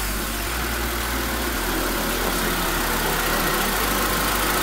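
Honda Stream's four-cylinder engine idling steadily.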